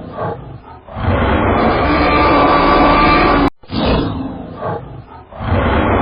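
A loud, rough animal call, a few seconds long, cut off abruptly and then repeated once with the same pattern.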